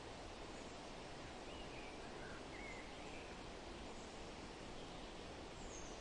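Steady outdoor background hiss, with a few faint, short bird chirps about one and a half to three seconds in.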